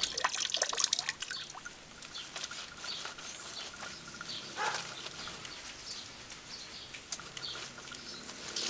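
Water dripping from an old brass tap in irregular single drops, thickest in the first second or so.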